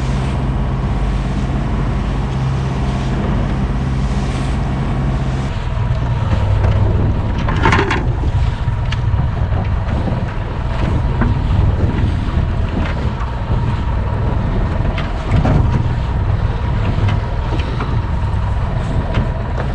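Fishing boat's engine running steadily, its note changing about five and a half seconds in. Scattered short knocks or splashes sound over it, the strongest about eight seconds in.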